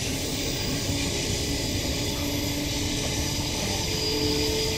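Cabin running noise of a Queensland Rail NGR electric multiple unit (Bombardier-built) under way: a steady rumble of wheels on track. A faint whine sits under it, with a higher note coming in near the end.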